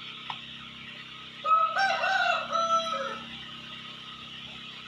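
A rooster crows once: a single call of about a second and a half in several pitched segments, starting about one and a half seconds in.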